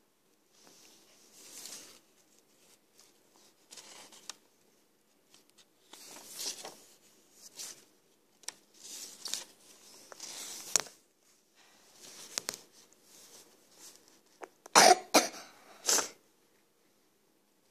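Scattered rustling and handling noise as paper pages are held, moved and turned, with a louder cluster of short bursts about three-quarters of the way through.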